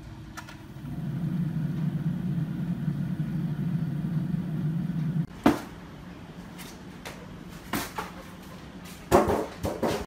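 Refrigerator's evaporator fan running behind its grille with a steady low hum that comes up about a second in and cuts off about halfway. Then a sharp click, and near the end a few knocks as a shelf is set into the fridge.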